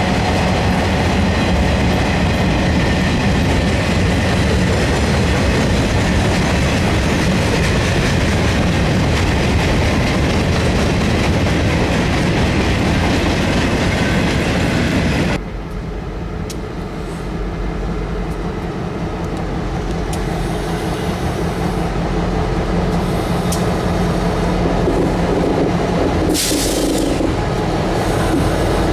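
Freight train of gondola cars rolling past with a steady rumble and wheel clatter, which cuts off abruptly about halfway through. After that, Norfolk Southern EMD GP38-2 diesel locomotives approach and pass, their engines growing steadily louder, with a brief high hiss near the end.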